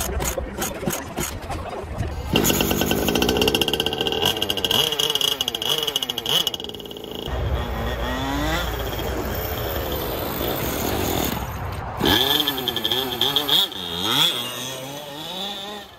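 32cc OBR two-stroke petrol engine of a 1/5-scale Losi DBXL buggy, revving high and dropping back again and again as the car is driven, with a high whine at full throttle. The engine is bogging and tends to cut out whenever the throttle is let off.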